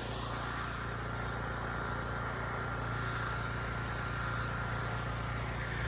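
Small gasoline engine of a portable generator running at a steady speed, an even hum with no change in pitch.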